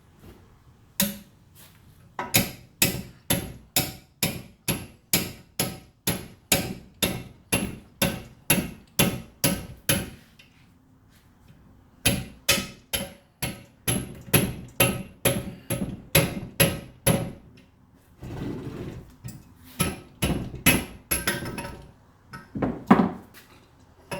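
Rubber mallet striking a 1950s Craftsman 150 drill press in quick, even blows, about two to three a second, to drive a stuck part out of the head. Two long runs of blows with a short pause between, then a few irregular knocks and rattles near the end.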